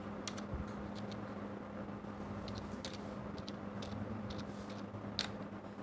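Computer keyboard keys clicking faintly and irregularly as a word is typed, over a steady low hum.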